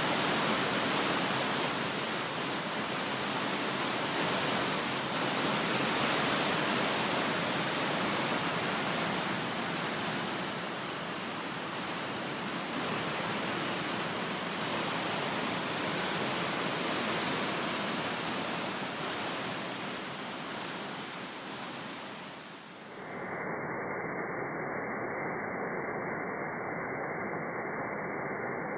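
Waterfall rushing steadily. About 23 seconds in, the sound cuts to a duller, muffled version of the rush with its high hiss gone.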